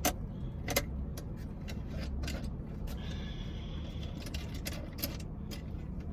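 Scattered sharp clicks and knocks of small things being handled and moved about, over a steady low hum in a car cabin.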